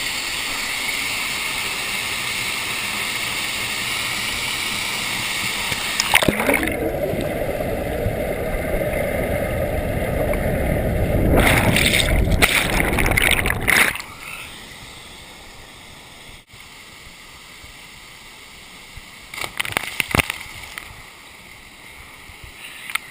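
Steady rush of falling and churning water from a waterfall. About six seconds in it turns duller and deeper, and about fourteen seconds in it drops much quieter, with a few short splashes near the end.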